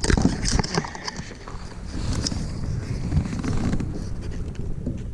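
Wind rumbling on the microphone, with a few sharp knocks and clicks in the first second.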